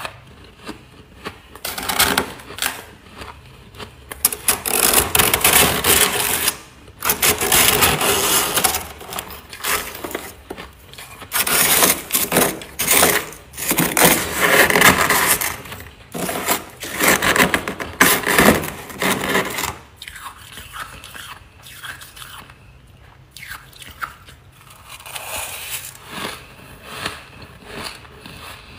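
A spoon scraping hard, powdery freezer frost in rough strokes, mixed with frost chunks crunched between the teeth. The sound is loudest through the middle and is lighter and more broken up over the last several seconds.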